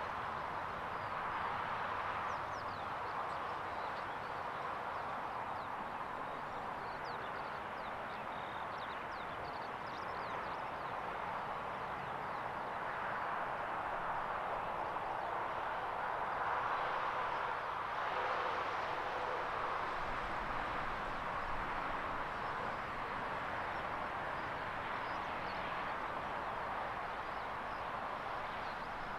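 Outdoor ambience: a steady hiss that swells a little now and then, with faint bird chirps scattered through it.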